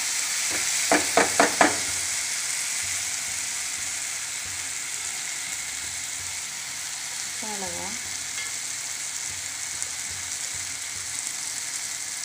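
Onion-tomato masala sizzling steadily in a nonstick frying pan as it is stirred with a wooden spatula. About a second in there are four quick sharp knocks, likely the spatula tapping the pan.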